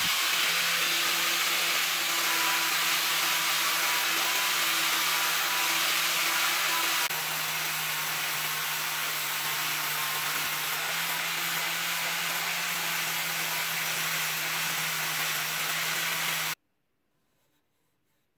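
Angle grinder spinning a brass wire wheel against a softwood board: a steady, harsh scratching hiss over the motor's hum as the wires eat away the soft grain to raise a rustic texture. The level drops slightly about seven seconds in, and the sound cuts off sharply near the end.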